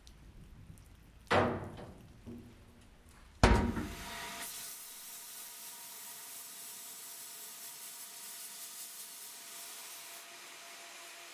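Two knocks, the first a little over a second in and a louder one about two seconds later. Then a sandblasting cabinet's blast gun starts up and runs as a steady hiss, blowing very fine glass beads at low air pressure against the rusty steel body of a 1930s Accles & Shelvoke Warrior air pistol to strip the rust.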